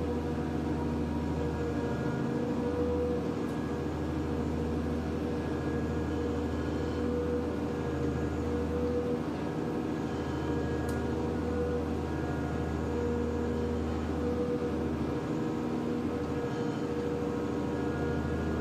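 Running machinery of a sea-cleaning boat, its engine and debris conveyor, making a steady drone with a deep hum and a constant whine over it. The deep hum dips briefly twice.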